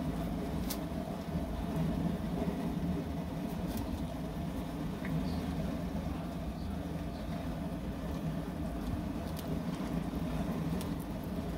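A steady low mechanical drone with a faint hum, and a few faint light clicks.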